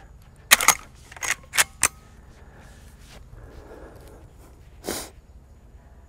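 Henry lever-action rifle's lever being worked, a quick series of sharp metallic clicks and clacks in the first two seconds, with one more click about five seconds in.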